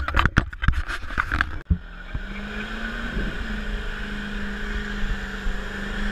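Loud, choppy, distorted burnout noise for about the first second and a half, then cut off abruptly. After that comes the steady, even-pitched drone of a pickup truck's engine as the truck rolls slowly toward the crowd.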